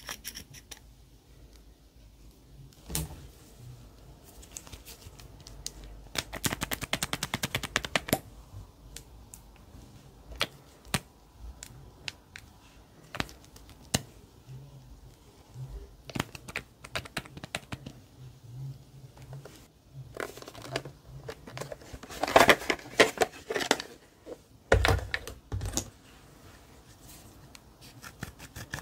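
Slime being squeezed and worked by hand, making runs of sticky clicks and pops. The clicking is densest about six to eight seconds in and again after twenty seconds, with scattered single clicks between.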